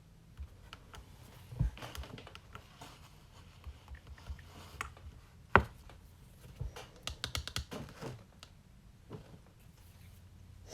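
Scattered light clicks and taps, with one sharper click about five and a half seconds in and a quick run of clicks a couple of seconds later.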